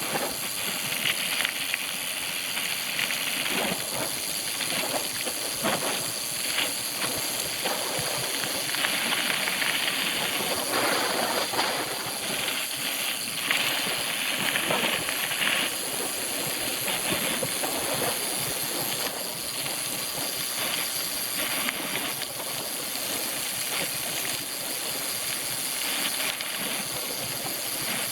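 Mountain bike rolling over a dirt trail: a steady hiss of tyre and wind noise, broken by frequent small knocks and rattles.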